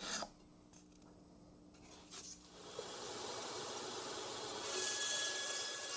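A couple of short pencil scratches on a maple board, then from about two and a half seconds a bandsaw cutting through the thin bird's eye maple, a steady rasping hiss with a faint whine that grows louder about five seconds in.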